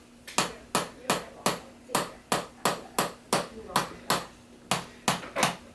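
A chiropractor's hands tapping on a patient's body in a steady rhythm, about three sharp strikes a second.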